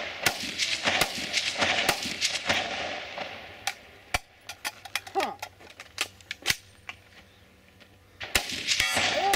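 Rifle gunfire: a string of shots about three a second, thinning to single shots roughly half a second apart, then a short lull and a fresh fast string near the end.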